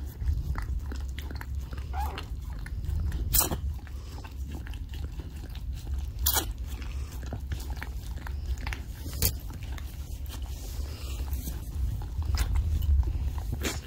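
Siberian Husky mother licking and mouthing a newborn puppy: wet licking and chewing noises, with sharp clicky smacks every few seconds over a steady low rumble.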